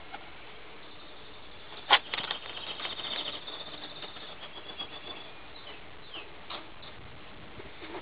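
Tippler pigeons' wings flapping on take-off from the loft: a sharp clap about two seconds in, then a rapid clatter of wingbeats lasting a second or so.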